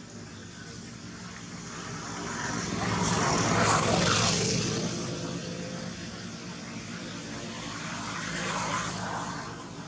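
A motor engine passing by, swelling to its loudest about four seconds in and then fading, with a second, smaller swell near the end.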